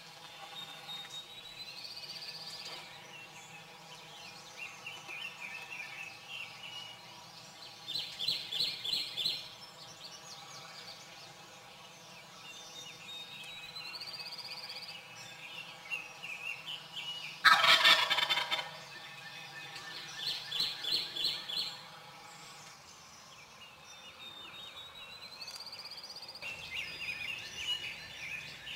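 Eastern wild turkey gobbling at close range: one loud rattling gobble a little past halfway through. Songbirds sing around it, a rising whistled phrase and quick trills repeating every few seconds.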